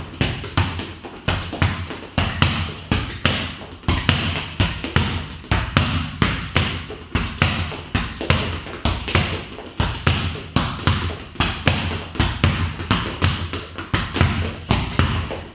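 Football struck first-time against a wall with alternating right and left foot: a quick, regular run of thuds, about two or three a second, of foot on ball and ball hitting the wall and floor.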